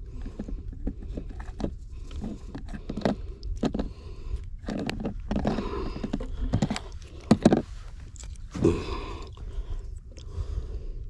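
Wind buffeting the microphone, with scattered clicks and rustles from hands handling fishing line, a plastic tackle box and pliers; a couple of sharper knocks come about seven seconds in.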